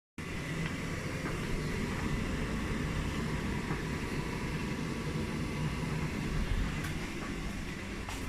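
Beko 8 kg washing machine running, a steady low rumble of the turning drum with a few faint clicks.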